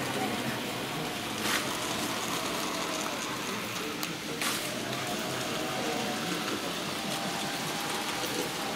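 Steady background noise of a busy exhibition hall, with faint distant voices, and two short clicks about a second and a half and four and a half seconds in.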